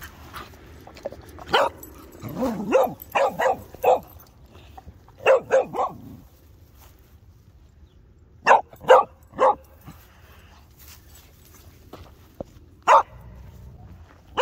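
A dog barking in short runs of quick barks with pauses between: a string of barks in the first few seconds, three at about five seconds, three more at about eight and a half seconds, and a single bark near the end.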